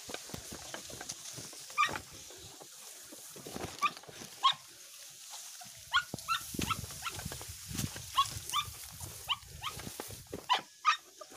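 Dog giving short, high yelps about a dozen times at irregular intervals, with rustling and footfalls through the vegetation in the middle stretch.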